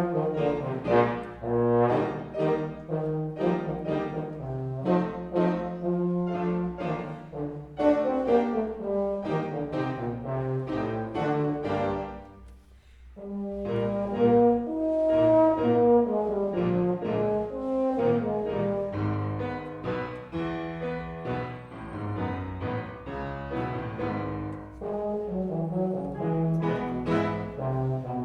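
Live performance of a low brass instrument, likely a trombone, playing a heavy, slow tune in the low register with piano accompaniment. The music thins out briefly about halfway through, then resumes.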